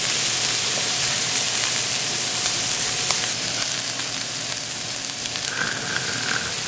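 Thin strips of beef sizzling on a hot ridged griddle plate: a dense, steady hiss with small pops and crackles of fat spitting.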